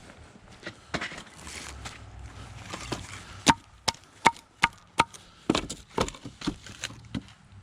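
Split hardwood firewood pieces knocking and clacking against one another as they are stacked: scattered knocks at first, then a quick run of sharp, hollow-ringing clacks about halfway through, followed by several more.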